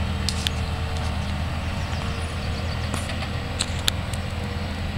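Diesel locomotive engine running steadily with a low, even rumble, with a few short clicks over it.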